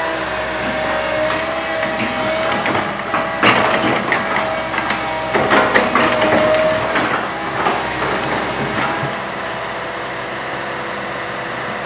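Komatsu PC160 hydraulic excavator working: its diesel engine runs steadily under a whine that wavers in pitch, and a string of knocks and rattles comes between about three and eight seconds in. After that it settles to a steadier, slightly quieter running.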